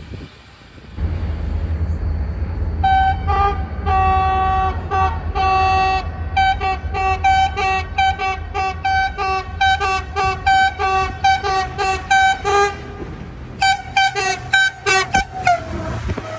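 Diesel locomotive's air horn sounded over the low rumble of the train: a few longer blasts, then a long run of short, rapid toots about three a second, a brief pause, and another quick run of toots.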